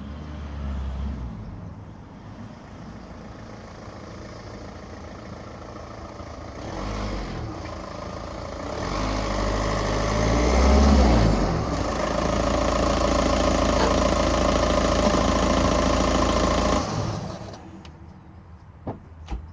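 2006 Volkswagen Jetta 1.9 TDI diesel with a muffler- and resonator-delete catback exhaust, driving up and pulling in close. Its engine and exhaust grow louder to a peak about ten seconds in, with the pitch sliding as it revs, then run loud and steady before dropping away near the end. Two sharp clicks follow.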